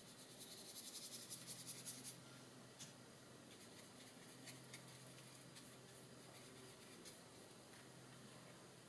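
Faint scratchy strokes of a paintbrush spreading watercolour on paper, strongest in the first two seconds, then a few isolated soft ticks over a faint steady hum.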